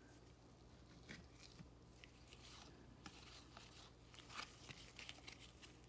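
Faint rustling and soft ticks of baseball trading cards being flipped through by hand, each card slid off the front of the stack to the back, over a low steady room hum.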